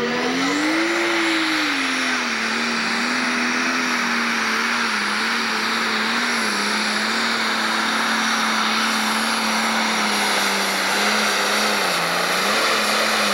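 Turbocharged diesel engine of a Pro Stock pulling tractor at full throttle, hauling the weight-transfer sled. The pitch climbs briefly and falls back, then holds a steady high note with small wavers and a brief dip near the end.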